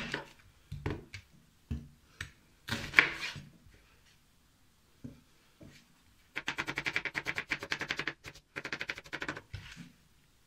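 Kitchen knife cutting an onion on a wooden cutting board: a few single cuts and knocks, then two quick runs of rapid chopping, the second shorter, near the end.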